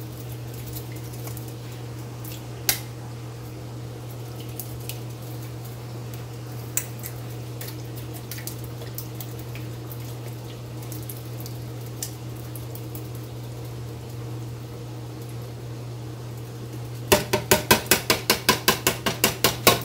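Metal cookware clinking over a steady low kitchen hum: a few scattered clinks, then near the end a quick run of about a dozen sharp metal knocks, about five a second.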